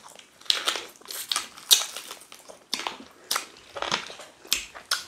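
Close-miked mouth sounds of people eating chicken and ogbono soup with fufu by hand: chewing, lip-smacking and crunching, as about ten short, irregular smacks.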